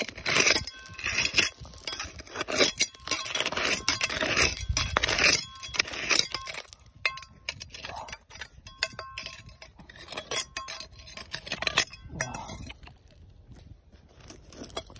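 A small metal trowel scraping and clinking against stones and loose gravel. Dense for the first half, then sparser knocks and scrapes.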